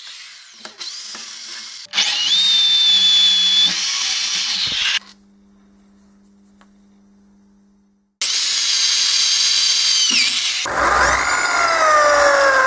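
Corded electric drill running in several separate bursts while drilling holes in steel. Each run spins up with a rising whine and holds at speed, and in the loudest, last run the pitch slides down. Between two runs there is a stretch of faint low hum.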